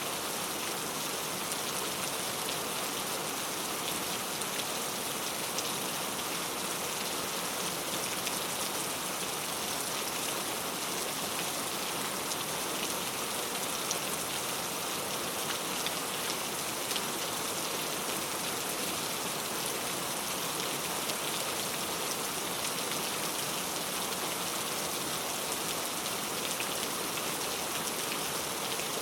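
Steady rain falling, an even hiss dotted with small drop ticks, without thunder.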